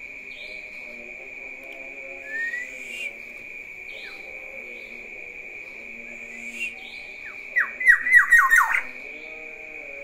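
Black-naped oriole calling: a short rising whistle about two seconds in and another near six and a half seconds, then a quick run of about seven loud notes, each sliding downward.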